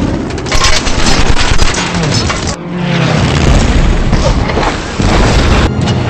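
Film battle sound effects of an air raid: explosions and booms over the drone of warplane engines, with a plane's engine pitch gliding down about halfway through. The sound cuts abruptly twice as the scenes change.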